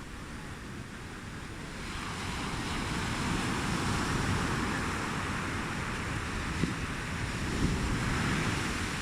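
Ocean surf washing onto a beach, swelling louder about two seconds in and again near the end, with wind rumbling on the microphone.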